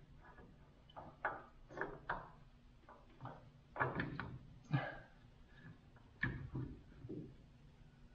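Metal parts and hand tools knocking and clinking as they are handled: about a dozen short, separate knocks at irregular intervals, the loudest about five seconds and six seconds in.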